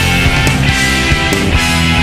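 Background rock music with electric guitar over a steady drum beat.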